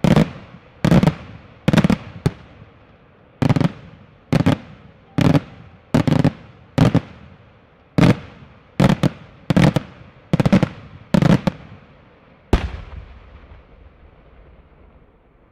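Daytime aerial firework shells bursting overhead: more than a dozen loud, sharp bangs, a little under a second apart, each trailing off in an echo. The last bang, near the end, is followed by a long rumbling tail, and then the bangs stop.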